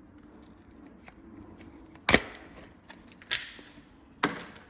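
Three sharp clacks of hard kitchen items knocking as they are handled, a little over a second apart, the first the loudest.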